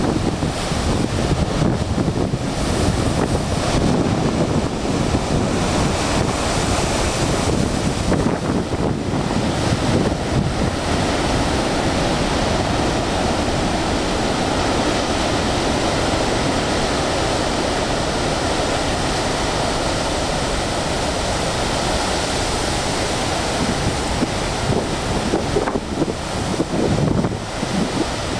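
Large ocean surf breaking and rumbling in a continuous roar against a rocky shore. Wind buffets the microphone in gusts for roughly the first ten seconds and again near the end.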